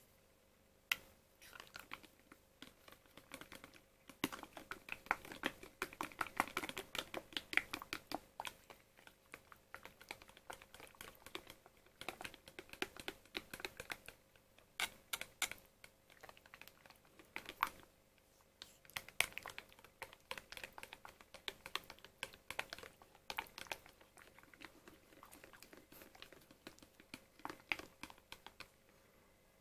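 Metal spoon stirring thick cream yogurt in a plastic pot, clicking and scraping against the pot's sides in quick irregular runs with short pauses.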